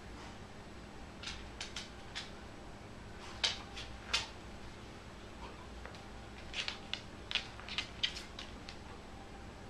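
Light, sharp clicks and taps from a corgi stepping about on a mat over a hardwood floor: a few scattered in the first half and a quicker cluster near the end, as it walks off the mat.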